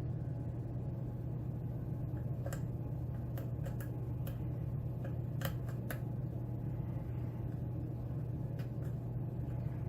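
Faint, irregular little clicks and ticks of a hook pick working the pins of a pin-tumbler lock held under a tension wrench, over a steady low hum.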